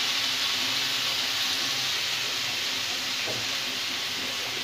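Hot oil sizzling steadily in a steel kadhai, frying onion, garlic and chillies under freshly added spice powders and salt. It is a smooth hiss that eases a little toward the end.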